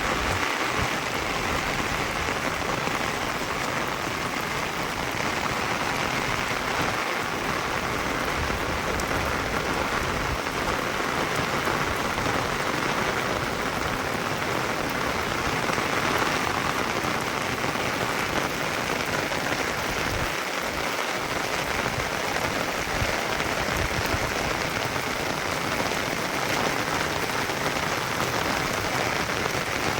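Steady rain falling, an even hiss that holds at one level without a break.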